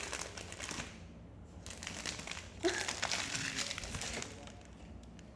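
Plastic foil wrapper of a blind-box figurine crinkling as it is handled and opened, in irregular bursts.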